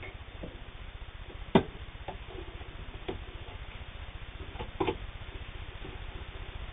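New Home electric table-top sewing machine stitching steadily with a rapid, even ticking, sewing up a thick seam of about 16 layers of flannel-backed denim. A few sharp clicks stand out, the loudest about a second and a half in.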